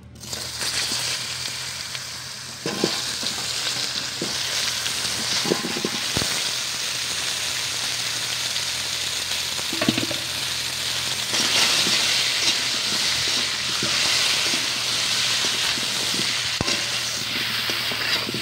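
Potato chunks frying in hot oil in an aluminium kadai, a steady sizzle that starts about half a second in as they go into the pan and grows louder in the second half. A few brief knocks against the metal pan.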